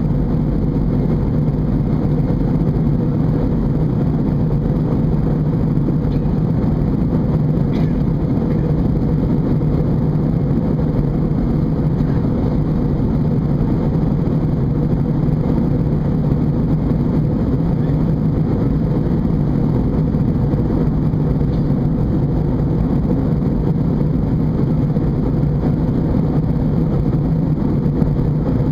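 Steady drone inside the cabin of an Airbus A320 in flight: engine and airflow noise, with a low hum.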